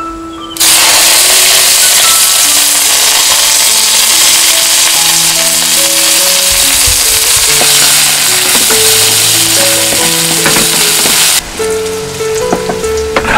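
Sliced red onions dropped into a hot metal wok, frying with a loud sizzle that starts suddenly about half a second in and holds steady. Near the end the sizzle drops away abruptly and a wooden spoon stirs, with light clicks.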